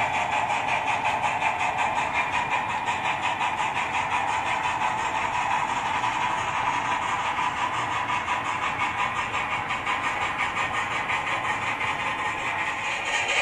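HO-scale model passenger coaches rolling steadily along the track, with a fast, even pulsing in the sound that fits the steam-locomotive sound of the GMAM Garratt model's Loksound 5 decoder heard beneath the wheel noise.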